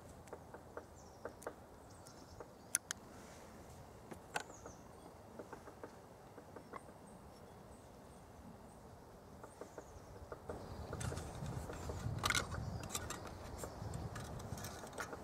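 Scattered small clicks and knocks of hands handling a lighter, a tealight holder and a glass jar lantern. From about ten seconds in come louder rustling and handling noises, with one sharp knock.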